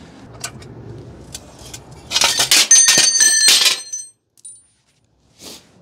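Faint clicks of hand tools on metal, then a loud metallic clatter with several high ringing tones for about a second and a half, like loose metal parts falling and rattling.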